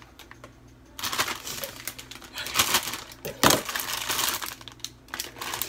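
Plastic bag of frozen broccoli florets crinkling and rustling as it is handled, with a sharp thump about three and a half seconds in.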